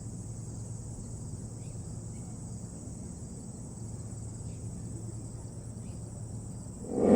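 Steady high insect chirring over a low hum, with a few faint short chirps. About seven seconds in, a Federal Signal SD-10 outdoor warning siren starts its weekly test, its tones rising steeply in pitch and loudness as it winds up.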